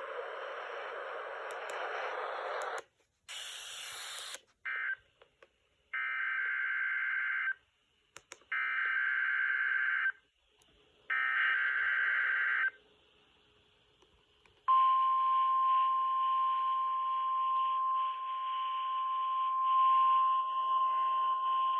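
NOAA Weather Radio broadcast through a receiver with static: radio hiss, then three warbling SAME data bursts, each about a second and a half long with short gaps between. About fifteen seconds in, the steady 1050 Hz warning alarm tone starts and holds over a hiss of static. These are the signals of the weekly test of the warning alarm system.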